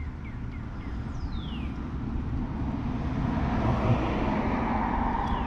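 Steady low outdoor rumble that grows louder over the last two seconds, with a couple of short falling whistles.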